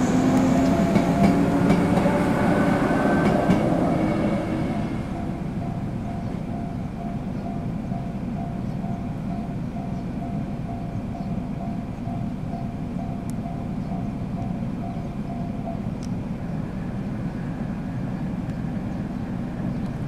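JR 103 series electric train passing over a level crossing, its rumble fading after about five seconds. A level-crossing warning bell keeps sounding in an even repeating pattern, then stops about 16 seconds in. Low steady background noise remains afterwards.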